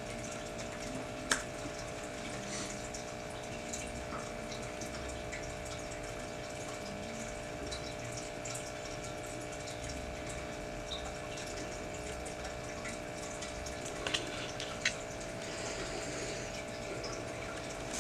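Steady machine hum with a fixed whine, broken by a few sharp clicks: one about a second in and two close together near the end.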